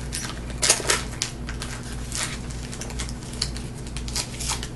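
Foil wrapper of a trading-card pack crinkling and rustling in irregular crackles as it is torn open and the stack of cards is slid out, loudest about a second in.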